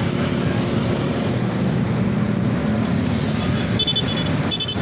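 Roadside traffic with a heavy vehicle's engine running steadily, and a few brief high-pitched tones in the last second.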